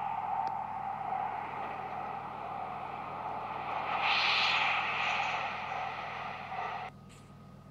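Electric train passing through a station at speed: steady running noise with a whine, and a rushing hiss that swells about four seconds in as the cars go by. The sound cuts off suddenly near the end.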